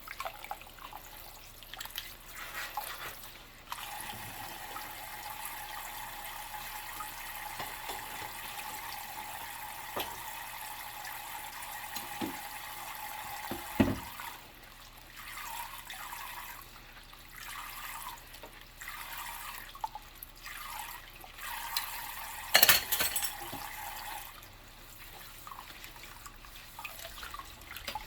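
Dishes being washed by hand in a sink with rubber gloves on: tap water running and splashing, which eases off about halfway through. There is a short knock as the running stops, and later a louder clatter of dishes.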